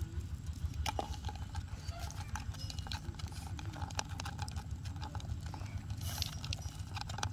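Irregular light ticks and scratches against a plastic tub, over a steady low rumble, with a few sharper clicks about a second in, around four seconds, just after six and near the end.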